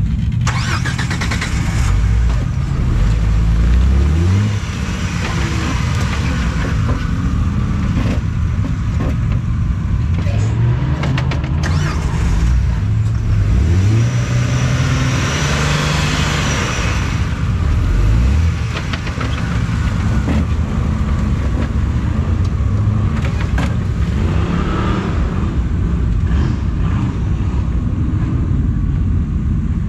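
Jeep Wrangler Rubicon engine revving up and falling back again and again as it crawls up a steep muddy ledge, with the biggest pushes a few seconds in and again past the middle.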